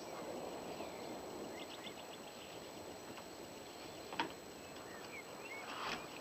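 Outdoor night ambience: a steady background hiss with a few short, high chirping calls, a sharp click about four seconds in and a brief rustle near the end.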